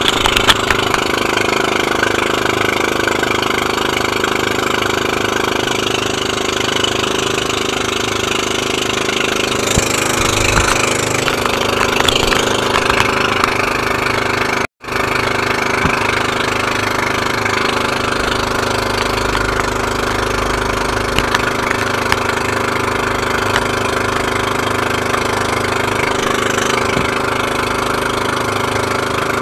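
Motorized outrigger boat (bangka) engine running steadily under way, with wind and water rushing past the hull. The sound cuts out for an instant about halfway through.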